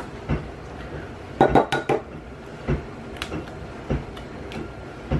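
Egg tapped against the rim of a glass measuring cup and cracked open: a string of short sharp knocks and clinks, the loudest a quick cluster about a second and a half in. A dishwasher runs in the background.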